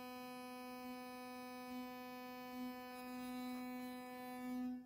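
Philips Sonicare Prestige electric toothbrush handle running with no brush head fitted: its sonic drive gives a steady buzzing hum at one pitch, swelling slightly now and then, and the repaired unit is working. It switches off abruptly just before the end.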